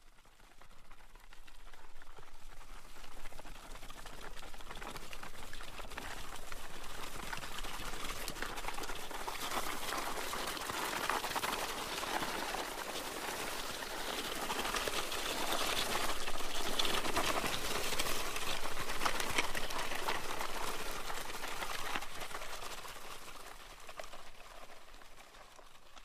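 Something being dragged across gravel: a continuous crunching and scraping of small stones. It fades in, grows louder through the middle and fades away near the end.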